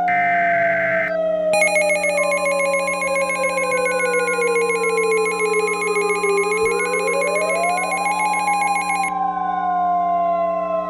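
Emergency Alert System signals: the end of a SAME digital header burst in the first second, then a harsh buzzing alert tone from about a second and a half in until about 9 s, and the steady 1050 Hz NOAA Weather Radio warning alarm tone starting about 2 s in. Under it all a slow siren wail falls in pitch, swings back up a little past the middle, and starts falling again.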